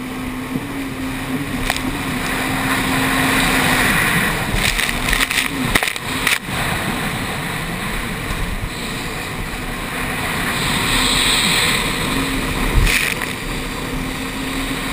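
Jet ski engine running hard, its pitch rising and falling with the throttle through the turns, over the rush of water spray and wind.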